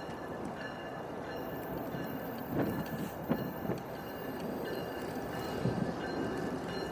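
Approaching CSX diesel freight train: a steady rumble of the locomotive and cars on the rails, slowly growing louder, with a few sharp clacks of wheels over rail joints in the middle and a faint high ringing.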